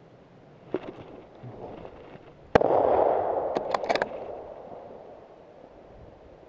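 A single hunting rifle shot about two and a half seconds in, its report rolling away and fading over the next couple of seconds, with a few sharp clicks just after. Before the shot, a knock and some rustling.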